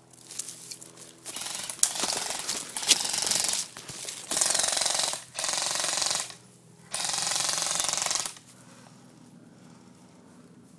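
Airsoft electric rifle (M4-style AEG) firing full-auto in about five bursts, each about a second long, its gearbox cycling rapidly; the last burst ends about eight seconds in.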